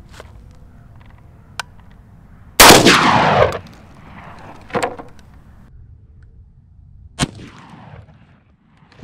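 A single 12-gauge shot from a Beretta A300 semi-automatic shotgun firing a steel-shot duck load, about two and a half seconds in, with an echo trailing off for about a second. Two sharp, much shorter clicks follow later.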